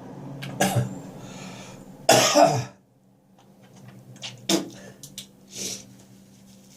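Morning coughing fit: a harsh cough, then a louder one about two seconds in, followed by fainter throat clearing.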